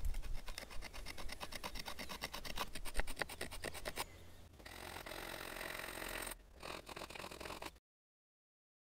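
A sharp stone sawing and scraping into a dry wooden fireboard, cutting the notch of a hand-drill fire set where the wood dust will gather and air will reach the ember. Quick rasping strokes, about ten a second, give way to a steadier continuous scrape and then a few more strokes, before the sound cuts off abruptly about a second before the end.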